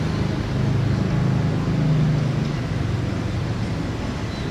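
Diesel engine of a CC206-class diesel-electric locomotive running with a steady low drone, swelling slightly about two seconds in.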